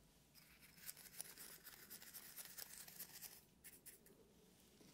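Faint grainy rustling and light scratching of granulated candle wax shifting in a small glass, the granules clumping together, with many small ticks. It thins out after about three and a half seconds, leaving a few soft ticks.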